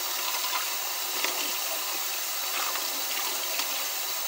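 Kitchen sink faucet running in a steady stream while dishes are washed by hand under it, with a few faint knocks of dishes being handled.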